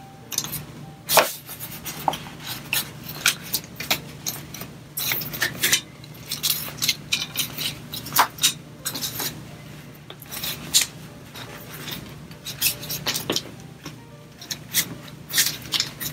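Steel frame of a Coleman folding camp stool clinking and rattling as it is folded up by hand: a long series of irregular sharp metal clicks and clinks with some rubbing, the loudest about a second in.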